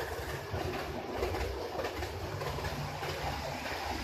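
HO scale model trains running on the layout's track: a steady low motor hum with fast, fine clicking of the wheels over rail joints and points.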